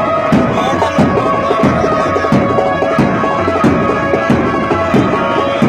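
Background music with a steady drum beat, about three strikes every two seconds, over sustained drone-like tones.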